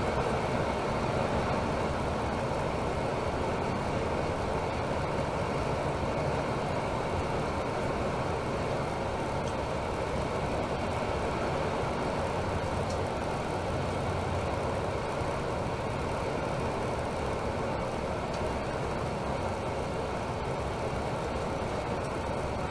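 Steady engine drone and road noise of a Temsa Maraton coach running at cruising speed on a motorway, heard from inside the passenger cabin.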